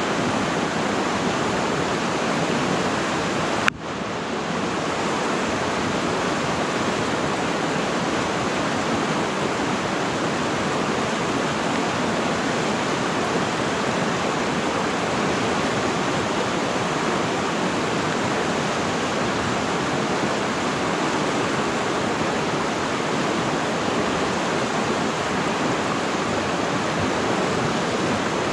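River water flowing steadily, a constant even rush of moving water. A single sharp click about four seconds in briefly interrupts it.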